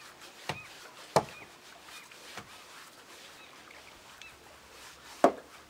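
Three sharp knocks, about half a second in, just after a second in and near the end, over faint bird chirps.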